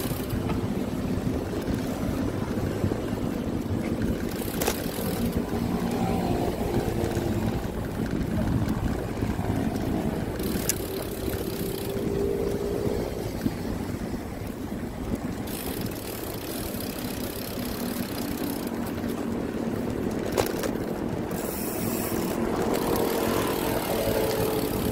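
Wind buffeting the microphone of a moving road-bike rider, mixed with the steady hum of traffic on the road alongside. Three short clicks break through.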